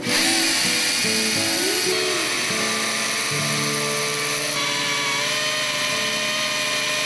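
Water-fed chainsaw with a diamond chain cutting into stone: a loud, steady high whine and grinding hiss that cuts in abruptly, over plucked guitar music.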